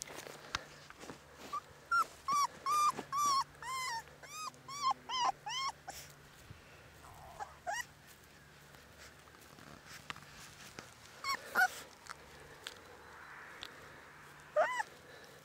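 Cane Corso puppy, about a month old, whimpering: a quick run of about a dozen short, high whines that rise and fall in pitch, then single whines now and then.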